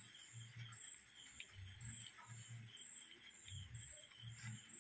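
Faint, steady insect chirping, about two high chirps a second, over soft irregular low thuds.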